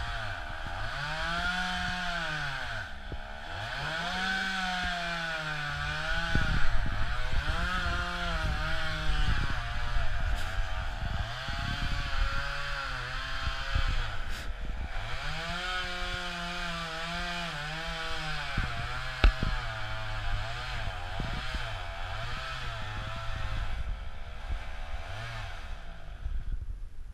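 Pole saw motor running, its pitch rising and falling again and again as it is revved and eased off while cutting into the tree, with a couple of sharp knocks. It cuts out just before the end.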